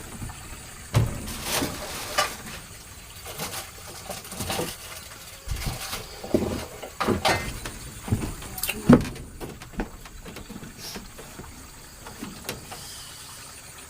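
Irregular knocks and clicks, some louder than others, with the loudest a little before nine seconds in and quieter after that.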